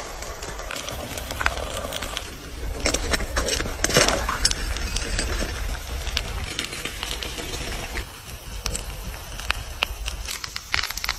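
A tuna-can stove's flames crackling and spitting under a metal mug of water, with irregular sharp clicks throughout. A cluster of louder knocks and rustles comes about three to four seconds in, and wind rumbles on the microphone.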